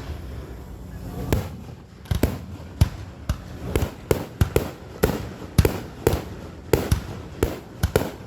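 A rapid, uneven series of sharp bangs or pops, roughly two a second.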